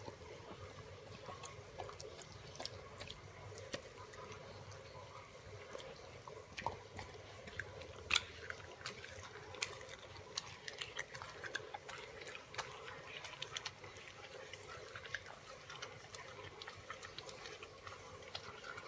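Rough Collie chewing raw fish: wet smacking and irregular clicking bites, with one sharper snap about eight seconds in.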